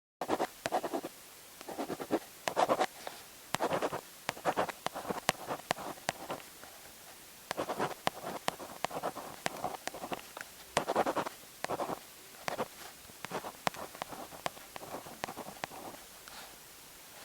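Writing by hand on paper: irregular runs of short scratchy strokes with small sharp clicks among them and brief pauses between.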